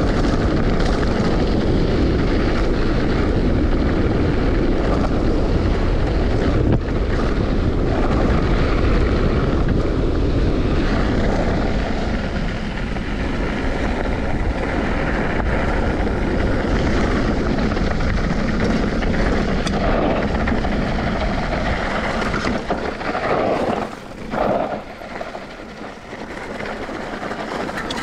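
A vehicle running steadily, with wind rushing across the microphone. The noise drops for a few seconds near the end.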